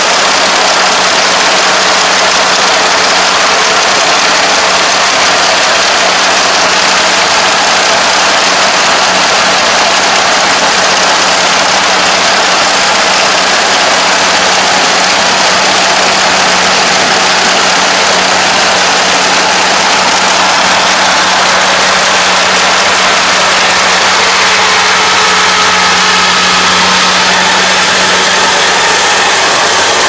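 Kubota ARN460 combine harvester running under load as it cuts and threshes rice: a loud, steady mechanical din from its diesel engine and threshing works, with a constant low hum underneath.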